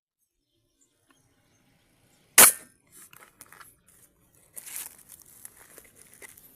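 A single sharp airgun shot about two and a half seconds in, fired at a fish.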